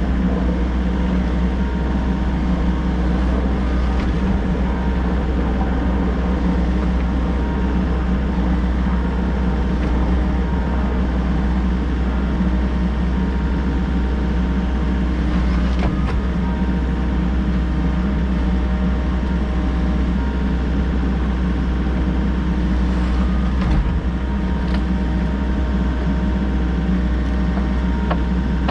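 Volvo EC60E excavator's diesel engine running steadily, with a few faint knocks partway through.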